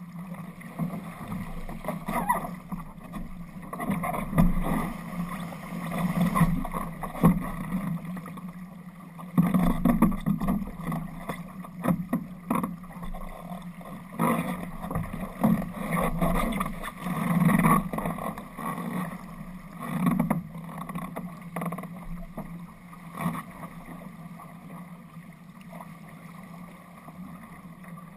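Water rushing and splashing along the hull of an RS Aero sailing dinghy running downwind through chop. It swells in irregular surges every couple of seconds as the boat rides the waves, and eases off near the end.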